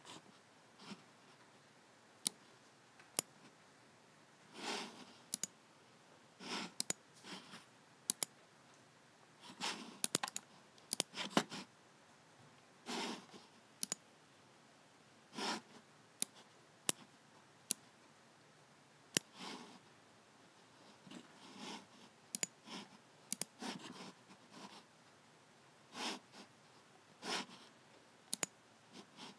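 Logitech G7 computer mouse buttons clicking at an irregular pace, dozens of sharp clicks, some in quick pairs, with short softer bursts of noise between them.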